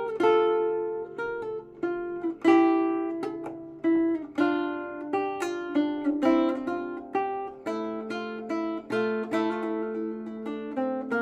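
Soundtrack music on acoustic guitar: picked single notes and chords, each ringing out and fading.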